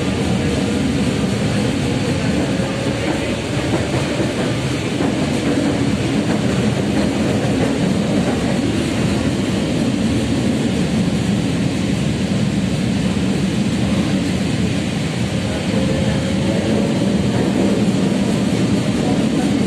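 Tatra KT3UA tram running between stops, heard from inside the passenger car: a steady rumble of wheels on rails, with a faint rising whine about three seconds in and again near the end.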